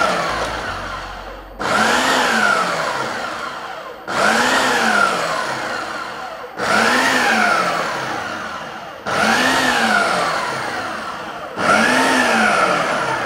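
Ninja 4-in-1 food processor running its auto chop programme on raw potatoes, carrots, green bell pepper and onion. The motor pulses about every two and a half seconds. Each pulse starts suddenly, rises in pitch and then winds down as the cutting blade spins up and slows.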